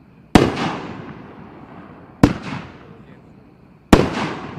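Raccoon Fireworks 'Voo Doo' firing aerial shots: three sharp bangs a little under two seconds apart, each trailing off in a fading crackle.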